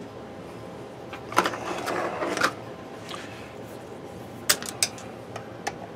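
Handling noise at a workbench: a cluster of clicks and rustling about a second and a half in, then a few single sharp clicks near the end.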